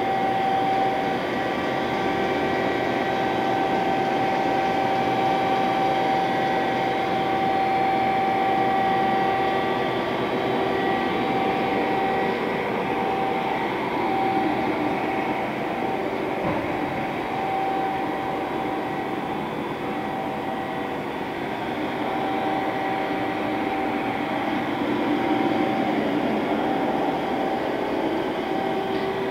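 Steady machine hum with a constant high whine over it, from a powered-up Hwacheon Hi-Tech 200A CNC turning center standing under power.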